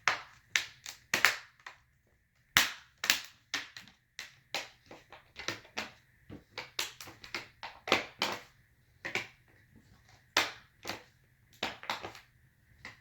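Plastic display bezel of a Dell Inspiron 15 5567 laptop being pressed back onto the lid, its clips snapping into place in a long irregular run of sharp clicks, at times several a second.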